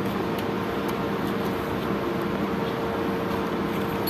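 Steady background machine hum with a couple of low steady tones and a few faint light ticks.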